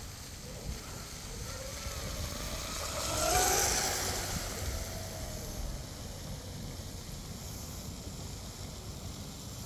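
Electric RC catamaran's 2948 3450 kV brushless motor whining as the boat planes past close by. The whine rises and, with the hiss of its spray, is loudest about three and a half seconds in, then fades away. Wind rumbles on the microphone.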